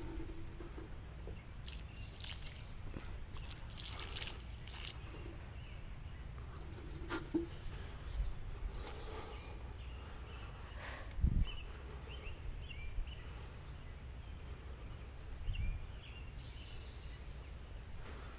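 Outdoor ambience with a steady low rumble, scattered rustling and clicking, and a few dull knocks, the loudest about eleven seconds in. Faint short chirps come and go.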